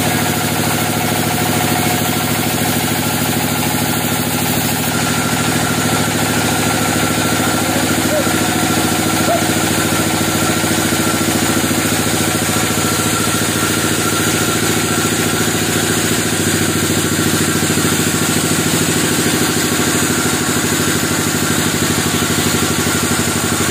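Log band sawmill running steadily, a continuous machine drone from its drive and band blade, with small shifts in tone about five seconds in and again around sixteen seconds.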